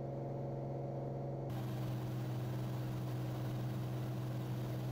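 Cirrus SR22's six-cylinder piston engine droning steadily in the climb, heard from inside the cockpit. About a second and a half in, a hiss joins the drone and its pitch shifts slightly.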